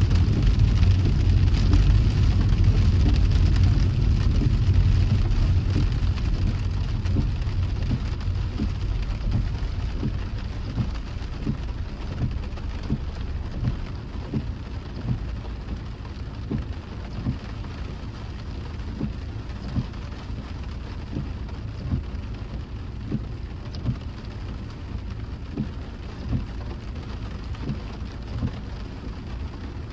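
Rain falling on a moving car, with a steady low road-and-engine rumble that fades over the first ten seconds or so, leaving irregular heavy drops tapping on the body.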